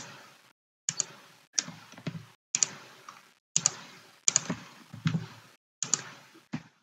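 Clicking of a computer mouse and keyboard while drafting: short clusters of two or three sharp clicks, about one cluster a second.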